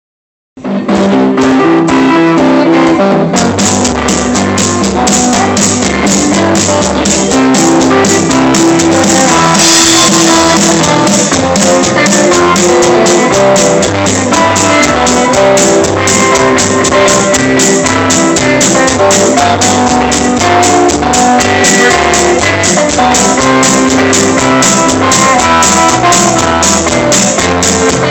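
Live band playing an upbeat instrumental on electric guitar, bass and drum kit, with a steady drum beat and a walking bass line. It starts abruptly about half a second in.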